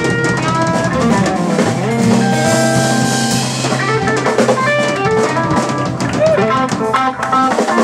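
Live blues band playing: two electric guitars, bass guitar and drum kit, with held and bending lead notes over the drums.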